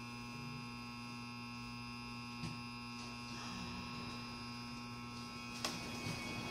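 Steady electrical hum inside a subway car, several fixed tones held without any rise or fall in pitch. There is a faint tick about two and a half seconds in and a sharper click near the end.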